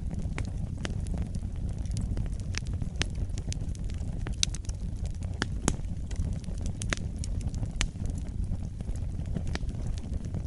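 Wood fire burning in a fireplace: a steady low rumble of the flames with irregular crackles and sharp pops of the burning logs, a few louder pops in the middle.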